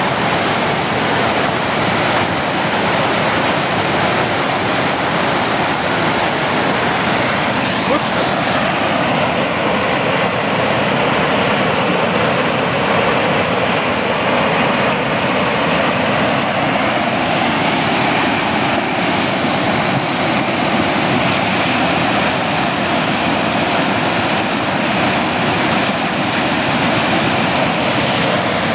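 Muddy floodwater surging through the opened gates of a canal headworks and churning past brick piers, a loud, steady rushing torrent.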